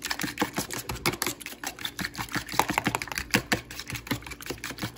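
A fork whisking beaten eggs in a black plastic container: a fast, steady run of light clicks as the fork strikes the container, several a second.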